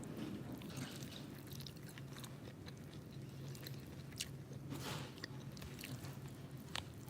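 Close-up eating sounds: fried eggs being chewed, with scattered small mouth clicks and smacks, over a faint steady low hum.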